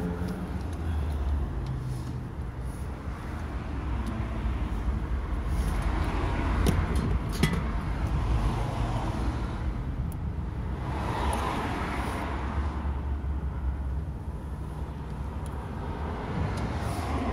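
Road traffic passing by in the background: a steady low rumble with several cars swelling and fading one after another. A couple of faint metal clicks about seven seconds in.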